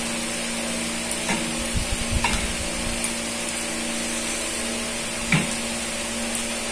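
Steady background hiss with a faint hum, broken by a few light clicks and low knocks of a spoon against a plastic bowl during a meal; the sharpest click comes past five seconds in.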